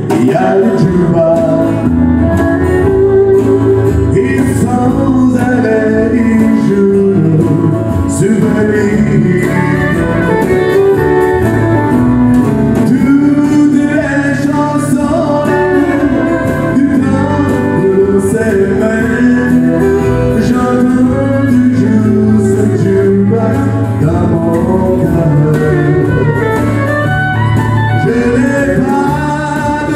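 Live country-western song: a man singing into a microphone over a strummed acoustic guitar, with a second guitar backing him.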